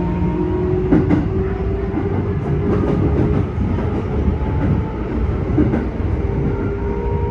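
Keikyu 1000 series electric train running, its traction motors giving off a loud whine that rises slowly in pitch over a steady rumble; the motor noise is unusually loud for this train set. A sharp clack from the wheels on a rail joint about a second in, and a few fainter ones later.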